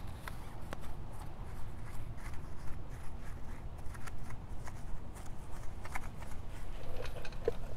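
Small bristle detail brush scrubbing between the spokes and inside the barrel of an alloy wheel: irregular scratchy brushing strokes with light clicks.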